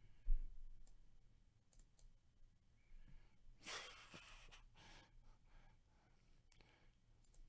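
Faint computer mouse clicks and a low thump near the start, with a breathy exhale, like a sigh, about halfway through.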